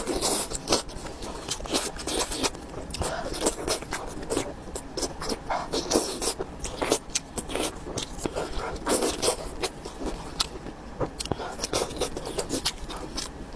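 Close-miked chewing and wet mouth smacking: an irregular stream of clicks and squelches as someone eats.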